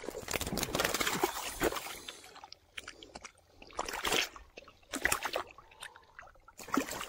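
Water splashing and sloshing as a large koi is slid into a water-filled plastic bag: a long burst of splashing at first, then shorter separate splashes about four, five and seven seconds in.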